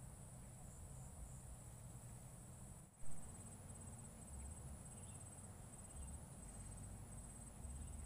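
Insects chirring steadily in a high, thin, even drone that breaks into rapid pulses after about three seconds, over a low rumble, with one short knock about three seconds in.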